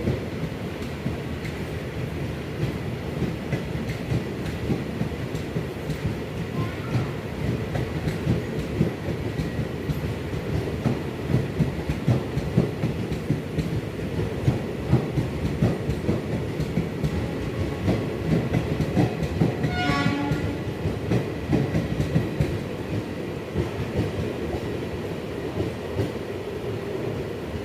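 A train moving through the station: a steady rumble with wheels clattering over rail joints, loudest in the middle and easing toward the end. A short pitched tone sounds about twenty seconds in.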